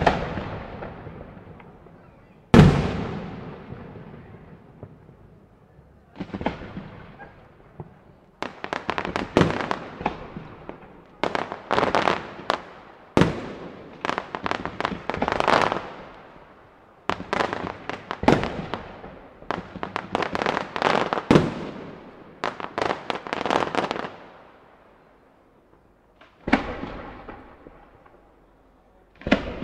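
Aerial fireworks display: single shell bursts with long echoing tails, then a dense run of rapid bangs and crackle from about eight seconds in, a lull, and one more burst near the end.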